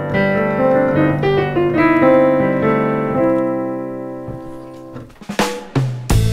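Digital piano played: chords and a short run of notes that ring on and die away over about five seconds, followed by a few brief noises near the end.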